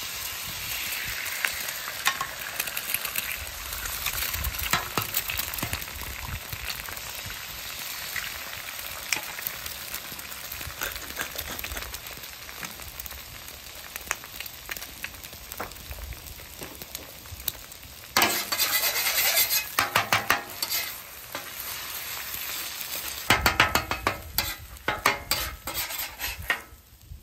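Two eggs sizzling on a hot Blackstone steel flat-top griddle. Later on come two loud bouts of rapid scraping and chopping as metal spatulas work the eggs against the steel top to scramble them.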